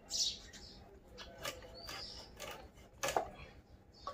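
Birds chirping, with a short high chirp near the start and a brief rising call about two seconds in. A few sharp clicks and scrapes come through, the loudest just after three seconds, as fish pieces are cut on a boti blade over a steel bowl.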